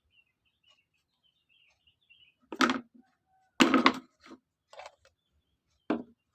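A few short clatters of kitchenware as the ingredients are handled, the two loudest about two and a half and three and a half seconds in. Faint bird chirps sound in the background before them.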